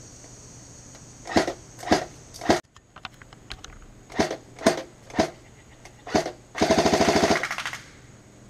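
G&G FN F2000 bullpup airsoft electric rifle firing. First come seven single semi-auto shots, mostly about half a second apart, with a short pause after the first three. Then a rapid full-auto burst of just under a second, the loudest part.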